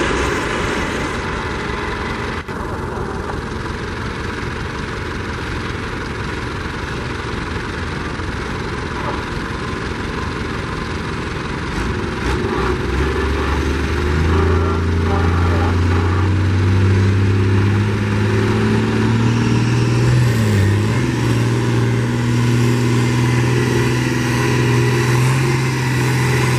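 Old John Deere farm tractor's engine, idling at first, then about halfway through opening up and running hard under heavy load as it drags a weight-transfer pulling sled. Its pitch sags briefly near the end, then recovers.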